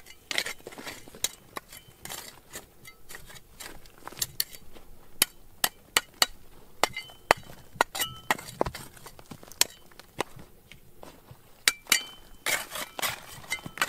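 Irregular sharp metallic clinks and taps, about one or two a second, some leaving a short ringing tone, with a pause about two-thirds of the way through and a quicker cluster near the end.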